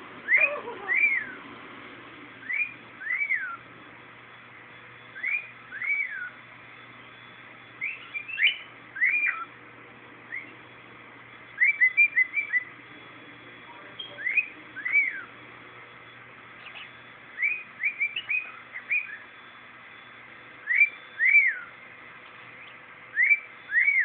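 Cockatiel whistling: pairs of clear, arching whistle notes repeated every two to three seconds, with a few runs of quicker, shorter chirpy notes in between.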